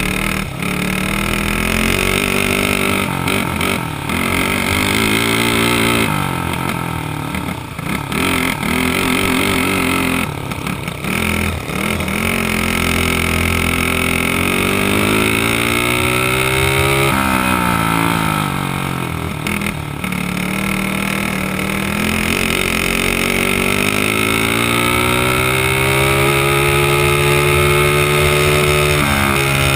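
Dirt kart engine heard from on board, revving up and down with the throttle. It comes on and off in short stabs for the first dozen seconds, then pulls in long rising sweeps on the straights. It drops sharply a little past halfway and again soon after, as the kart slows for corners.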